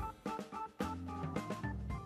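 Soft background music with a light drum beat.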